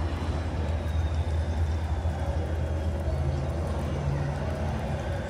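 Steady rain falling, an even hiss over a deep, steady hum.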